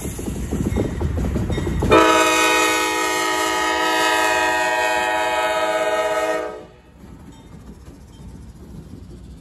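Norfolk Southern diesel locomotive's air horn sounding one long, steady chord of about four and a half seconds as the lead unit passes close by. It starts about two seconds in, over the rumble of the engine and wheels. After the horn cuts off, the train's rolling rumble carries on more quietly.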